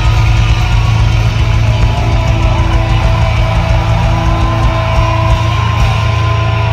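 Metalcore band playing live: heavy distorted guitars over bass, loud and dense, with long held notes.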